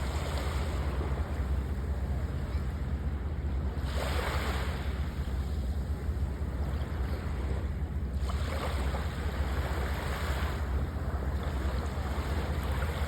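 Sea waves breaking and washing up the shore, a swell of surf every four to five seconds over a steady wash, with wind rumbling on the microphone.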